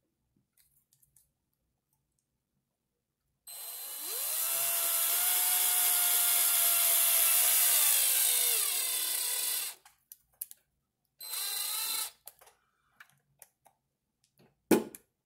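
Power drill-driver running a screw in: it whines up to speed, runs steadily for about six seconds and drops in pitch as the screw seats. A short second burst about a second and a half later snugs the screw down, and a sharp click comes near the end.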